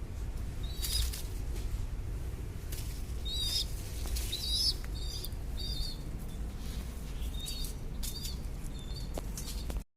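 Pigeon chicks (squabs) giving short, thin, high squeaks that bend up and down, in small clusters at irregular intervals over a steady low rumble. The sound drops out abruptly just before the end.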